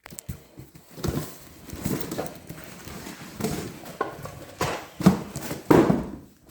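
Cardboard box and packing being handled as the parts of a bicycle repair stand are taken out, with rustling and a string of irregular knocks and thuds, the loudest about five to six seconds in.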